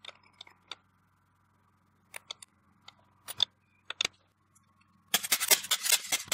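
Small metallic clicks and taps as a bridge rectifier is seated and screwed down onto an aluminium heatsink. About five seconds in, a loud, dense burst of rapid clicking and scraping as a self-adjusting wire stripper grips and strips insulated wire.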